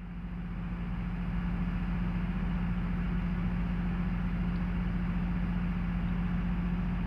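Tugboat's diesel engine running steadily, a constant low hum with an even drone over it, fading in over the first second.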